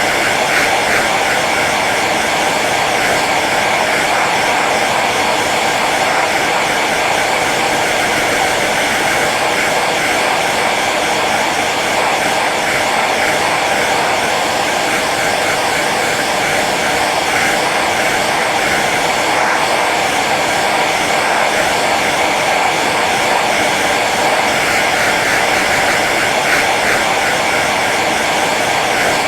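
Hair dryer running steadily on its low setting: an even rush of blown air over the motor's hum, with no change in speed.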